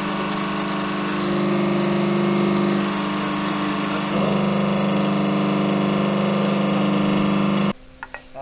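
Hydraulic shop press running with its pump motor giving a steady hum and a low drone, while the ram presses a stacked part of a tank's final drive together. The hum cuts off suddenly near the end.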